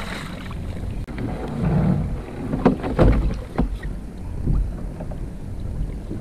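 Wind buffeting the microphone and water sloshing around a kayak as a crab hoop net is hauled up by its rope hand over hand. There are a few short, sharp sounds about three seconds in.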